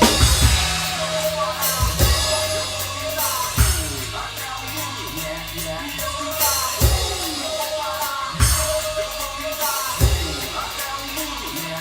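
Drum kit played along with a recorded song: a busy run of hits at the start, then a kick drum with cymbal crashes every one and a half to two seconds over the backing music.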